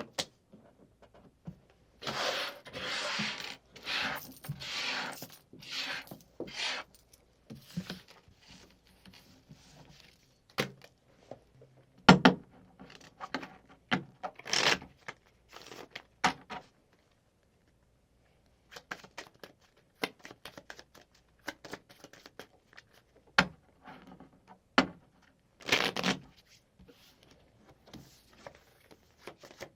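Playing cards being handled on a table: several quick rustling swishes like a shuffle, then scattered sharp clicks, taps and slides as cards are moved and laid down, with a few louder swishes along the way.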